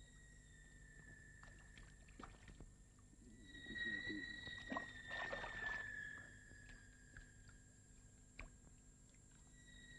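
Water splashing in a bathtub as a man is forced down into it, a burst of a couple of seconds about four seconds in, with a faint steady high whine underneath.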